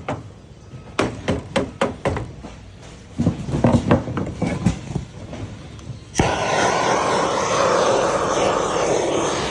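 Several light knocks as code 8 lead sheet is worked into a corner, then about six seconds in a gas torch lights with a sharp pop and burns with a steady hiss used to heat the lead.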